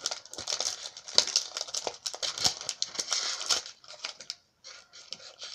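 Crinkling and tearing of a trading-card booster pack's plastic wrapper being worked open by hand: a busy run of crackles for about three and a half seconds, then only a few faint crinkles.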